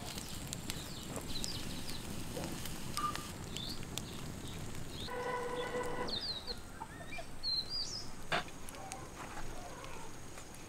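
Outdoor rural ambience with small birds chirping on and off. About five seconds in there is a steady pitched sound lasting about a second, and about eight seconds in there is a single sharp click.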